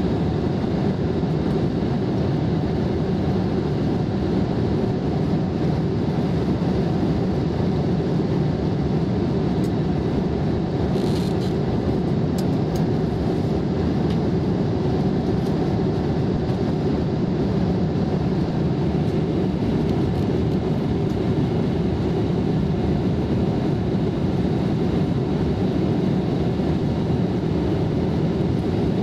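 Steady cabin noise of an airliner in flight: a constant low rush of engines and airflow heard from inside the passenger cabin.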